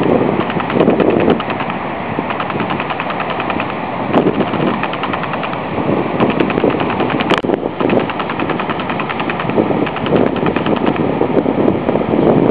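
Wind buffeting the microphone in uneven gusts, over a fast, even rattle of fine ticks, with one sharp click about seven seconds in.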